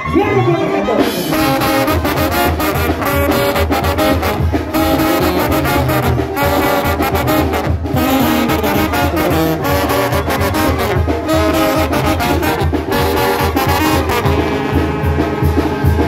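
Live Sinaloan banda music: a section of trombones playing a melody together, loud and steady, over a pulsing sousaphone bass line and drum strikes.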